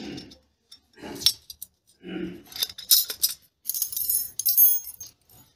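Thin steel grill rods clinking and rattling against one another and against a perforated aluminium tube as they are slotted into it, in a few short bursts.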